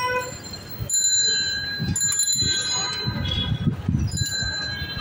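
Cycle-rickshaw bells ringing, once from about a second in and again near the end, each ring holding its tone for a second or more, over a low rumble.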